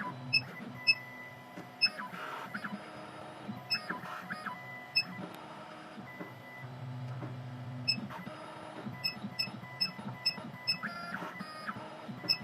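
2M2 Tank 2 Pro CNC key cutting machine decoding an SX9 key by probe, its stepper motors running in short moves that change pitch in steps, with many short ticks in between.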